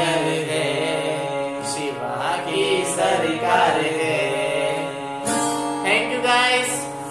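Two men singing a Hindi song to harmonium and acoustic guitar, drawing out the notes of the closing line over the harmonium's held chords. The music tails off near the end.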